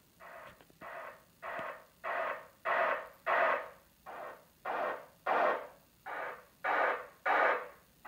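Yamaha RX-V677 receiver's YPAO auto-calibration playing short bursts of hissy test noise through the front speakers, about one burst every 0.6 s, each a step louder than the last, falling back about four seconds in and climbing again. This is the pre-check stage of the automatic speaker setup, testing each speaker in turn.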